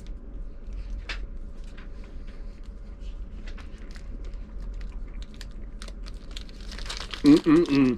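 A person chewing a Reese's Nutrageous peanut-and-caramel candy bar, with scattered small crunches and clicks. Near the end comes a short, louder hummed "mmm" of approval.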